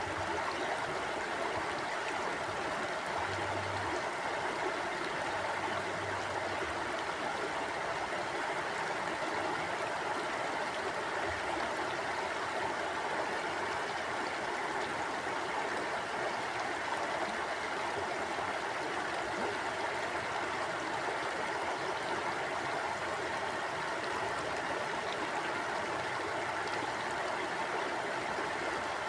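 River water flowing: a steady rushing of the stream, with no break or change.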